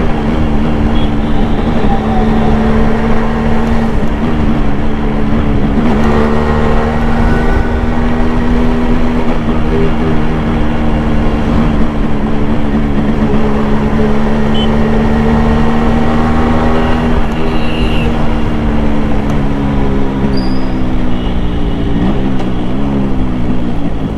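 1991 Yamaha RX100's two-stroke single-cylinder engine running at steady revs under way, with road and wind noise. The engine note changes briefly about six seconds in and wavers up and down near the end as the throttle changes.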